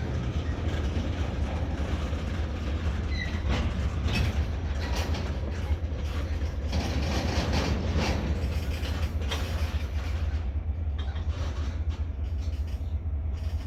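CSX freight train's cars rolling past during a yard switching move, wheels clacking irregularly over rail joints above a steady low rumble.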